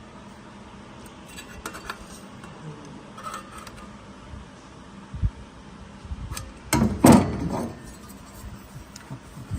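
Light metallic clinks and ticks from a CNC channel letter bending machine handling metal strip, with a sharp knock a little after five seconds and a loud clatter and thud about seven seconds in.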